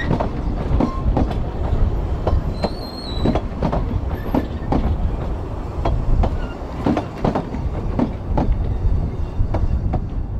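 Ffestiniog Railway narrow-gauge passenger carriages rolling past over a steady rumble, their wheels clicking over rail joints in an uneven clatter. A brief faint high wheel squeal comes about three seconds in.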